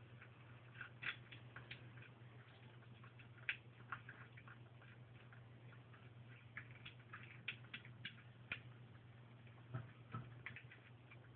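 Bombay kittens eating from bowls: faint, irregular small clicks and smacks of chewing and lapping, over a steady low hum.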